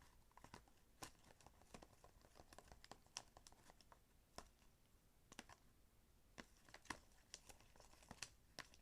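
Faint, irregular small clicks and taps from a plastic bottle and bowl being handled while boric acid solution is added to a slime mixture.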